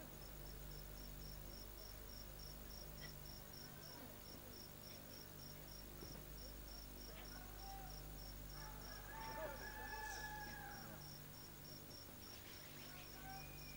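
Faint high chirping that repeats evenly about three times a second, like a cricket, over a low steady electrical hum.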